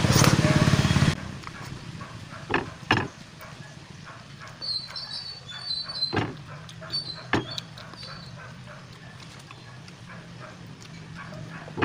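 Close-miked mouth sounds of a person eating with his hands: scattered wet smacks and clicks of chewing and lip-smacking. A steady low hum cuts off about a second in.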